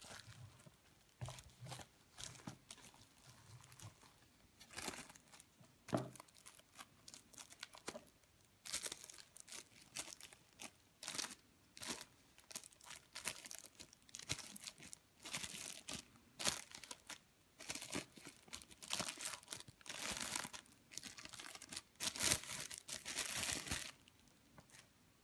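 Clear plastic shrink-wrap being torn and peeled off a cardboard retail box, crinkling and crackling in irregular bursts. The bursts are sparse at first, come thicker through the second half and stop about a second before the end.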